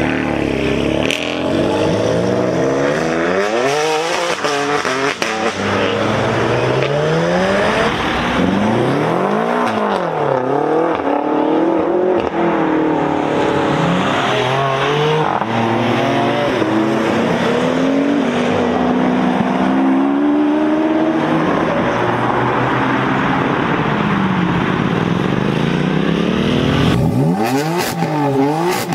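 BMW M car engine revving hard, its pitch rising and falling again and again. Near the end the sound changes to quicker, sharper rev blips.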